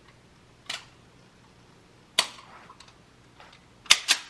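Gunshots on a range: four single shots, the first fainter, the last two in quick succession and loudest.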